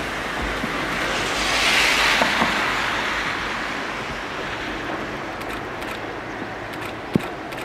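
A Siemens-built vintage electric locomotive and its freight wagons run across a steel girder bridge, heard from a distance over the steady rushing of the river and wind. A hissing swell comes about two seconds in, and there is a single sharp knock near the end.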